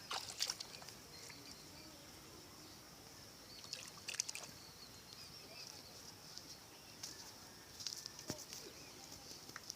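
Faint outdoor ambience: a steady high-pitched buzz, with scattered light clicks and knocks, a few of them in the last three seconds.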